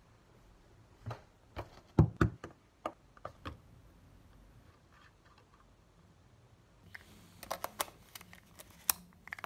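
Knocks and thuds as small objects such as film canisters and lenses are set down on a tabletop, the loudest about two seconds in. Near the end comes a quick run of sharp clicks as a lens is turned and seated on a Pentax MX camera's bayonet mount.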